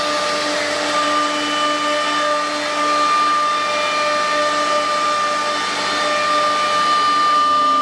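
CNC panel router running steadily: a held whine over a loud, even rushing noise.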